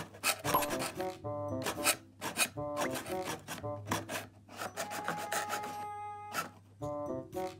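Cardboard scraping and rubbing from a cardboard whack-a-mole cat toy as its paddles are slid up and down through the slots, in a quick, irregular run of short scrapes.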